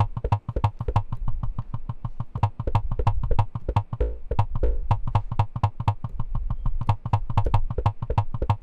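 Make Noise 0-Coast synthesizer, stepped by the 0-CTRL analogue step sequencer, looping a rapid stream of short plucked notes at about seven a second. A couple of longer, lower notes sound near the middle.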